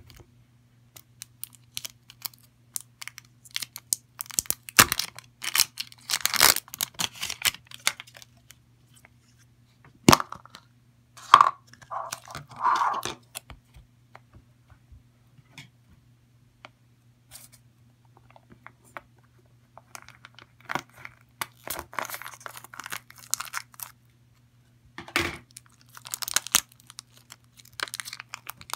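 Thin plastic packaging being handled and peeled open: crinkling and tearing of a plastic bag wrapped around a lump of putty, mixed with clicks of a hard plastic container. The sound comes in irregular bursts of crackles with short pauses between them.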